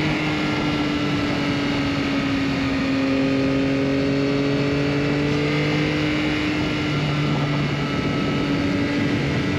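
Motorcycle engine heard from the rider's seat, running at a steady cruise with its pitch drifting slowly down and back up, under a constant rush of wind.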